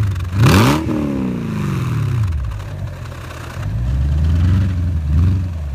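Mercedes-Benz S500's V8 exhaust, revved at a standstill. A sharp blip about half a second in falls back to idle over a second or two. A lower, longer rise near the end is held for about a second and a half, then drops off suddenly.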